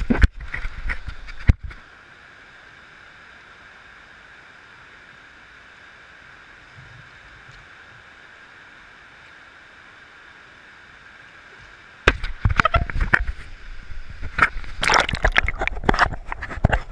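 Shallow river water sloshing and splashing right against a camera held at the waterline, in loud irregular bursts with knocks during the first second and a half and again from about twelve seconds in. Between them is a long stretch of steady, muffled river rushing.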